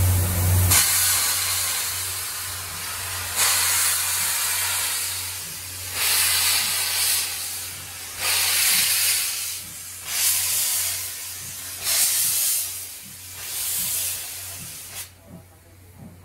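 C11 325 steam locomotive pulling away from a standstill, releasing loud hissing blasts of steam in surges about every two seconds. The hiss dies down near the end.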